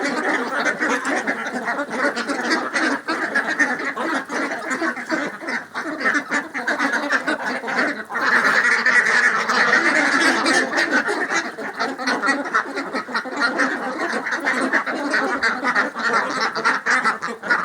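A flock of domestic ducks quacking continuously, many calls overlapping into a dense chatter, with a brief lull about eight seconds in.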